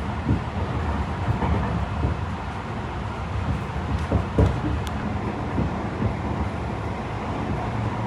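Tobu 50090-series electric train running on the line: a steady low rumble of wheels on rail, with a few short knocks from rail joints, the clearest a little past the middle.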